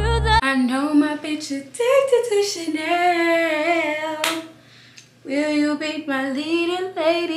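A woman singing to herself without accompaniment, holding long wavering notes, with a short pause a little past the middle. A sharp click sounds just before the pause.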